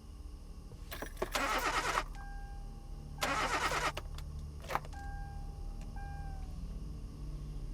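A car engine running with a steady low hum, broken by two loud, harsh noisy bursts about two seconds apart, each followed by a held high tone; a short sharp click and another held tone that sags slightly come later.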